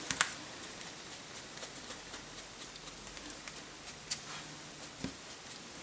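A blending-sponge ink dauber being dabbed and brushed over a paper stencil makes faint soft taps and rubbing. There is a sharper tick just after the start and two more near the end.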